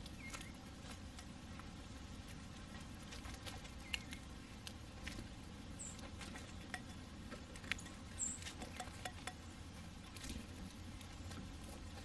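Scattered sharp taps and clicks of a blue jay pecking at seeds in a terracotta saucer, with light rustling in dry leaves. Two brief, high bird chirps come about six and eight seconds in.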